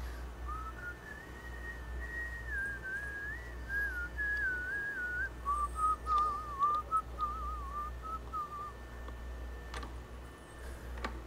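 A person whistling a tune, a single wandering melody that moves lower about halfway through and stops near the end, over a low steady hum. Two light clicks sound near the end.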